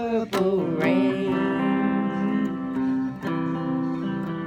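A man singing a drawn-out note with vibrato over strummed electric guitar chords, which then ring on steadily.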